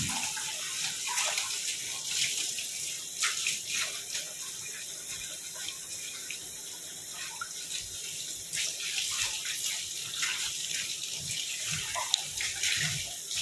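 Kitchen tap running, with water splashing unevenly.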